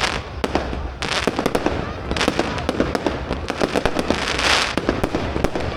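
Fireworks going off: a rapid run of sharp bangs and pops, with bursts of crackling hiss about a second in and again past the four-second mark, over a low rumble.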